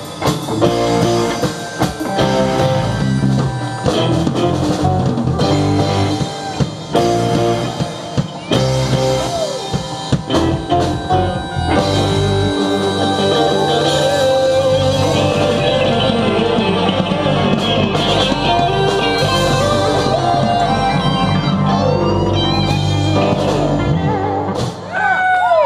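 Live rock band playing an instrumental passage, with electric guitar, keyboard and drum kit.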